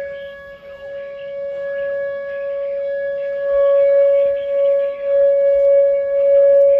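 Whelen WPS-2910 electronic outdoor warning siren sounding a steady, unwavering tone for a tornado warning. Its loudness swells and fades, loudest about halfway through and again near the end.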